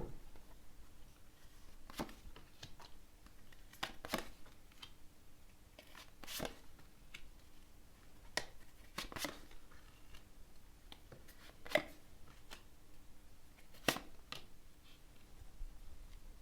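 Tarot cards being shuffled and drawn from the deck: short, sharp card snaps and slaps, irregularly spaced a second or two apart.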